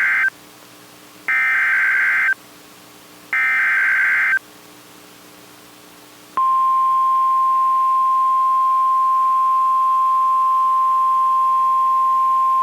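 NOAA Weather Radio SAME header: bursts of screechy digital data, about a second each and about two seconds apart. About six seconds in, the steady 1050 Hz weather-radio alert tone starts; it marks the start of a warning broadcast.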